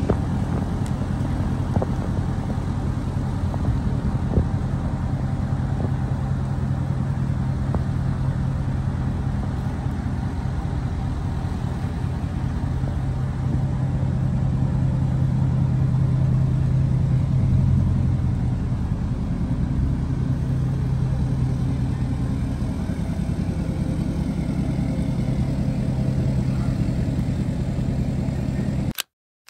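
Lifted Chevrolet Silverado pickup's engine running steadily at low speed as the truck is moved slowly, growing a little louder about halfway through, then cutting off suddenly near the end.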